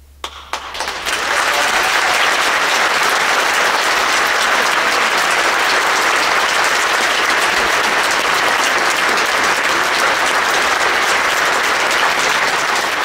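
Audience applauding: a few scattered claps at first, swelling within about a second into full, steady applause.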